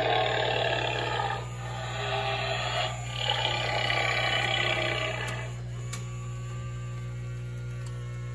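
Spirit Halloween Experiment 4 animatronic triggered, its speaker playing a loud monster sound effect in three long stretches. After about five and a half seconds it drops to a quieter steady hum with a single click.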